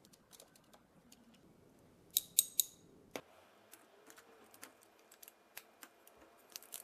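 Light clicks and metallic clinks from handling a small metal-framed gear set with metal-printed gears as it is fitted into an RC car's plastic chassis. A quick run of three sharp, ringing clinks comes a little over two seconds in, then one more click about a second later.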